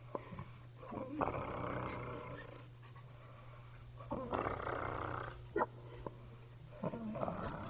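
A woman snoring in her sleep: three long, rough snores about three seconds apart, over a steady low hum.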